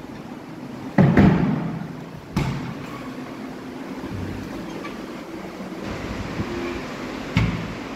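Built-in wardrobe doors being opened and handled: three dull knocks, the loudest about a second in, another about a second and a half later and a lighter one near the end.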